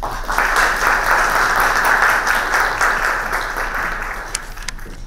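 Audience applauding, the clapping swelling right away and then thinning out, ending in a few last separate claps near the end.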